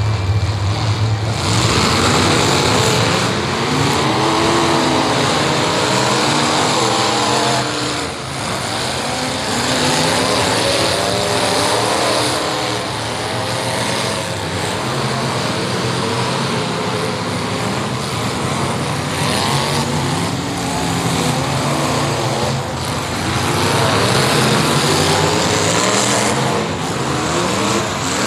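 Several full-size demolition derby cars racing a figure-8 dirt track, their engines revving, with several pitches rising and falling over one another as the cars accelerate and slow through the turns.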